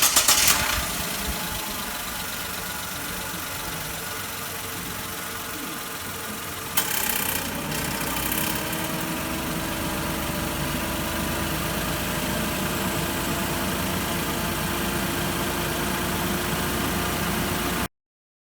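Car engine idling with the air conditioning on, in a car whose AC compressor keeps cutting in and out because the refrigerant pressure is far too high, suspected to be air in the system. About seven seconds in there is a sudden clunk and the engine note steps up, with a tone that rises and then holds steady.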